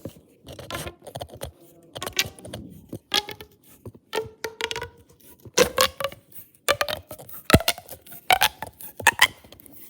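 Plastic pop tubes being stretched and squashed by hand, their ribbed sections snapping in quick irregular pops and clicks, some with a short pitched ring.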